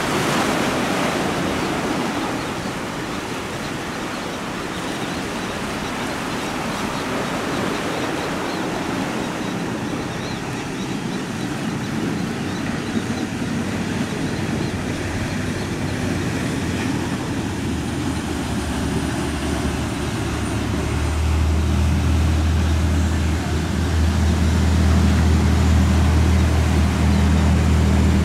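Wind and churning, splashing water as big sport fishing boats plow through rough inlet chop. About two-thirds of the way in, the low, steady drone of a large sportfish yacht's engines comes in and grows loud, becoming the loudest sound near the end.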